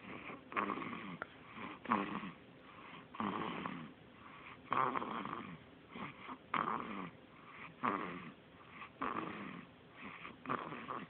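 A baby snoring: a steady run of short snores, about one every second and a half.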